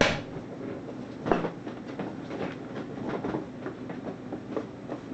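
Handling noise from a vintage HP-85 desktop computer on a bench: a sharp knock, a second knock about a second and a half in, then a run of small irregular clicks and rattles.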